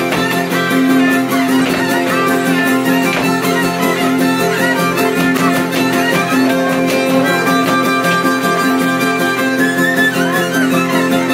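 Ceteră (folk fiddle) playing a lively danț dance tune over a steady rhythmic beat.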